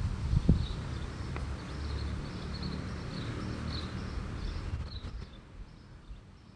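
Wind rumbling on the microphone, with faint chirping repeated several times a second in the background. There is a soft thump about half a second in, and the wind dies down near the end.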